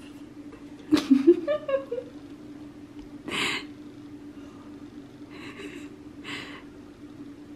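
A small child's short squeal about a second in, then a few breathy exhalations, over a steady low hum.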